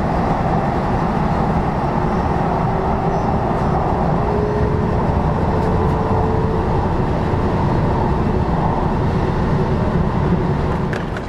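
Steady rumble of a moving Metro rail train heard from on board, with a faint thin whine that rises slightly in the middle.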